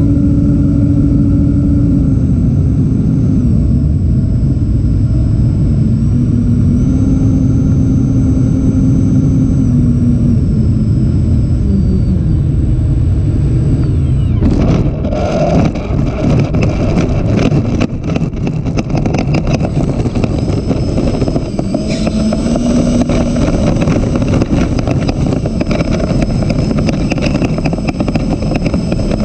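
Electric ducted fans of a 90mm Freewing A-10 model jet whining over rushing air, heard from an onboard camera, their pitch stepping up and down with throttle during a low approach. About halfway through the sound turns to steady rattling and bumping as the airframe rolls over grass after touchdown. The fans' whine rises again near the end.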